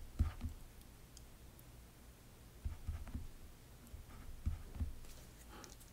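Faint, irregular taps and clicks of a stylus on a tablet screen during handwriting.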